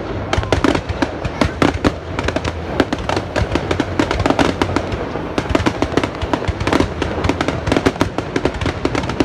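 New Year fireworks going off continuously: a dense, irregular run of sharp bangs and crackles, several a second.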